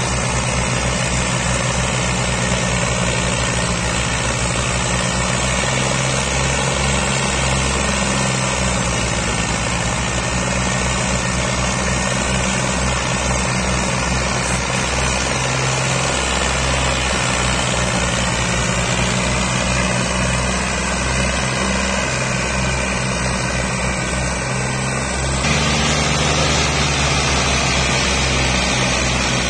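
Diesel tractor engines, a Massey Ferguson 240 and a second tractor hitched ahead of it, running steadily under load while hauling a heavily loaded sugarcane trolley. The engine note changes abruptly near the end.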